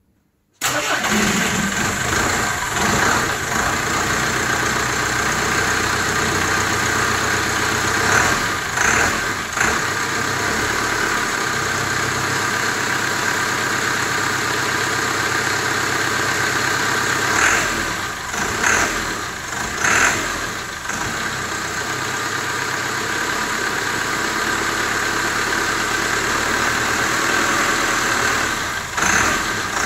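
Dodge S56 minibus's diesel engine idling steadily on its first run after a rebuild and fuel pump overhaul, with a few brief louder bursts along the way.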